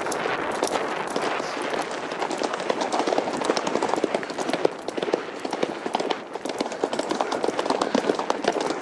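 Thoroughbred horse cantering fast along a narrow forest trail: a dense, irregular run of hoofbeats over a steady rush of noise.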